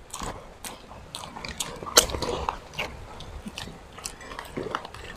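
Close-miked eating sounds: chewing and biting with scattered wet mouth clicks and smacks, the sharpest about two seconds in.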